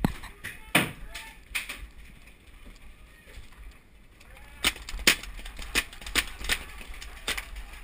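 Paintball markers firing: about ten sharp pops at irregular intervals, a few near the start and a quicker cluster in the second half.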